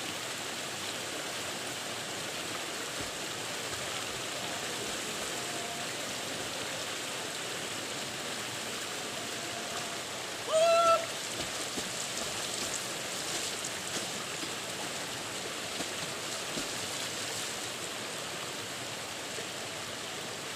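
Steady rush of river water flowing over rocks. About halfway through, a short loud vocal cry cuts in briefly.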